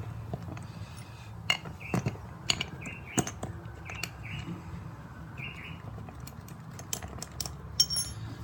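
Small metal clicks and taps as bolts are handled and set into the two halves of a scooter's split rear wheel rim. Several short high chirps come roughly once a second in the first half.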